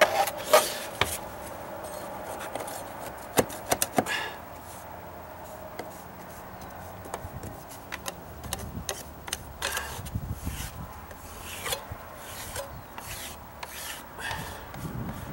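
Metal putty knife scraping and smoothing patching compound on a deck stair tread: irregular short scrapes and light taps, with a few sharper clicks in the first few seconds.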